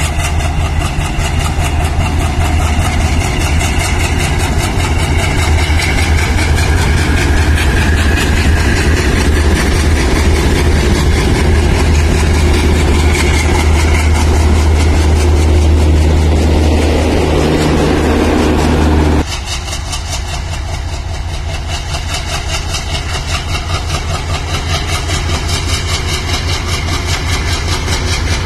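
Indian Railways WDG3A diesel locomotives' ALCO 16-cylinder turbocharged engines running with a loud, steady low throb and a fast even beat. About two-thirds of the way through, the sound drops abruptly to a second, quieter WDG3A.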